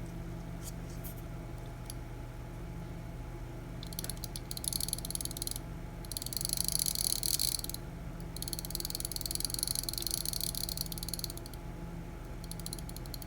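The small gear train of a battery clock movement turned by hand, giving several spells of fast ratcheting clicks starting about four seconds in, over a steady low hum.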